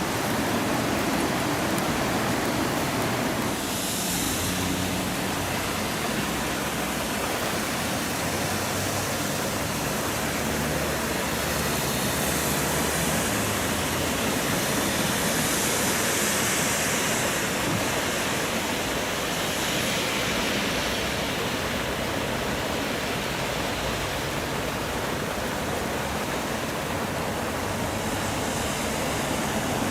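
Heavy flood flow of river water rushing steadily through fully opened sluice gates.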